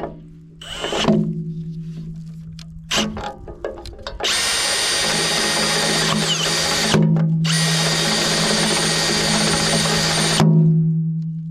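Milwaukee Fuel cordless drill boring out bolt holes in a steel mounting plate at low speed: a couple of brief trigger pulls, then two long steady runs from about four seconds in, broken by a short stop near the seven-second mark.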